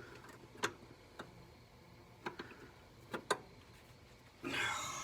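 Hand tools clicking and tapping against metal while working on a carburetor's throttle linkage: a few sharp, separate clicks about a second apart, then a short rush of noise near the end.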